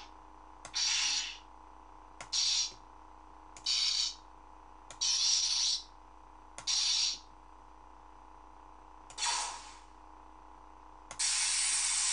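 Lightsaber sound font playing on a saber sound board: the steady blade hum runs under six short clash sounds about a second or two apart. About eleven seconds in, a continuous blade-lockup sound begins.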